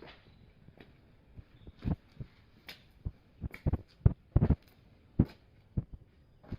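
A series of about a dozen short, irregular knocks and thumps, the loudest clustered in the middle.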